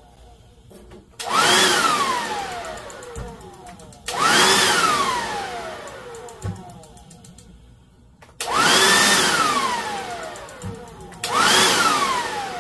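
Turbocharger-based homemade turbojet being blown with bursts of air: four rushes, each spinning the turbine up with a whine that climbs quickly and then winds down over a few seconds. These are light-off attempts with propane and spark; the builder says the combustor lit several times but got too much air and not enough fuel.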